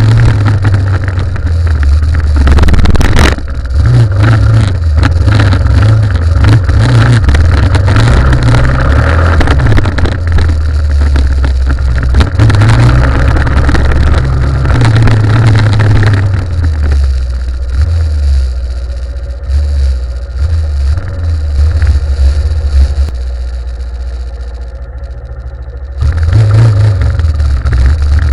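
Yamaha Ténéré 250 motorcycle's single-cylinder engine running under way, its pitch rising and falling with throttle and gear changes. About two-thirds of the way through it eases off to a lower, quieter run for several seconds, then opens up again near the end.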